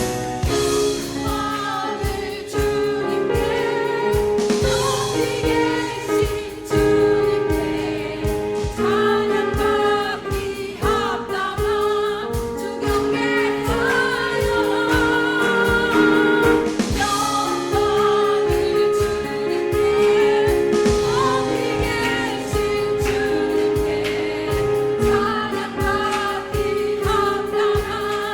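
Small vocal ensemble singing a Christmas carol in harmony over an instrumental accompaniment with a steady beat.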